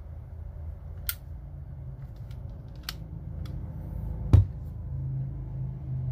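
Handling clicks from a cordless Milwaukee M12 Fuel right-angle die grinder, then one loud knock about four seconds in as it is set down upright on the workbench, over a low background rumble. A steadier low hum comes in near the end.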